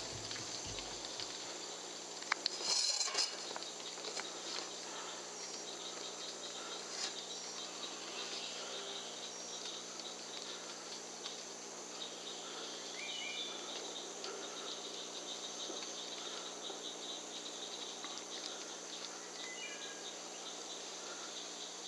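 Steady night chorus of crickets and other insects, a high, even trilling. A short burst of rustling about two and a half seconds in, and two faint short rising chirps, one midway and one near the end.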